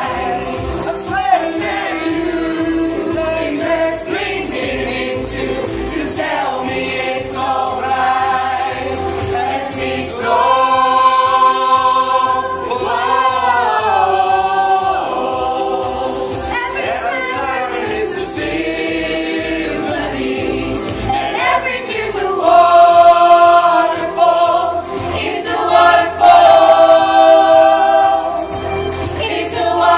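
A choir singing a pop song in concert over a low, regular beat, growing louder in the last third.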